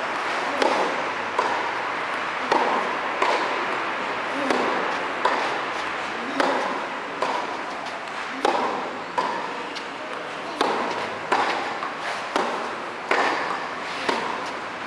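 Tennis rally on a clay court: the ball struck by rackets and bouncing, a crisp pop about every second, echoing in a covered hall.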